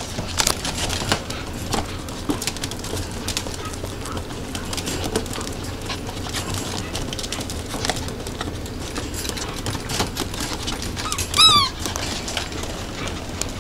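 Small puppies moving about and playing, with scattered clicks and scuffles. About eleven seconds in comes a short high-pitched puppy cry, the loudest sound.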